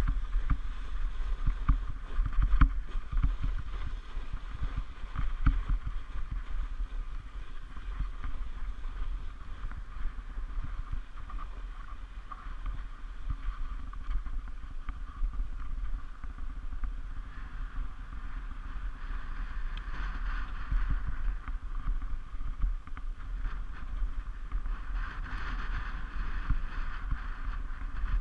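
Luge sled runners sliding over the packed snow of a toboggan run: a steady scraping hiss over a low rumble, with many small knocks as the sled rides over bumps, busiest in the first few seconds.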